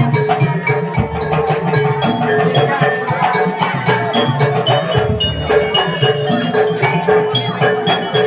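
A drum band playing: a bright melody on bell-like mallet percussion over a steady beat of drums.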